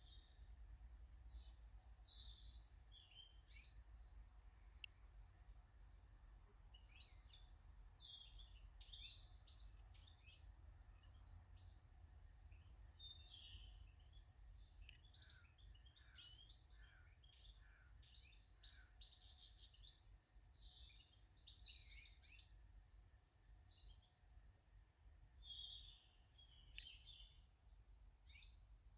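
Faint chirps and calls of small garden birds, many short notes overlapping, busiest in the second half, over a steady low rumble.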